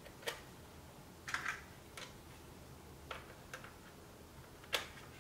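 Plastic body shell of an HO-scale model couchette car being snapped onto its underframe: about six small, sharp plastic clicks spread over a few seconds, the loudest near the end as the clips engage.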